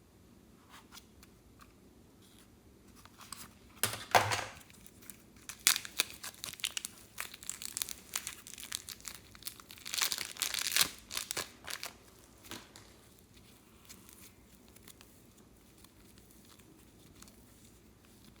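Clear slime being handled, with sticky crackling and popping. The crackling bursts loudest about four seconds in and again around ten to eleven seconds, then dies away to a few faint ticks.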